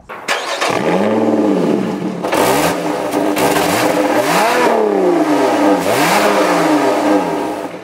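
2020 Lotus Evora GT's supercharged Toyota 3.5-litre V6 blipped several times through its single centre-exit sports exhaust, the revs rising and falling, the highest rev about halfway through.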